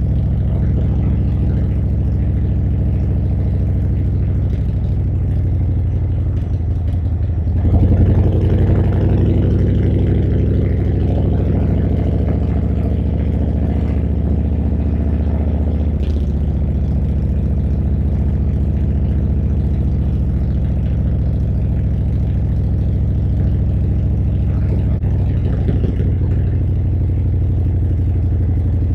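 Harley-Davidson V-twin motorcycle engine running on the road. About eight seconds in it opens up and the pitch climbs. Near the middle it drops back, then runs steadily to the end.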